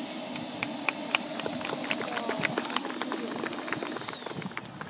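Radio-controlled model jet's engine whining steadily at a high pitch, then spooling down about four seconds in, its pitch falling steeply as the engine is throttled back or shut off. Scattered sharp clicks are heard throughout.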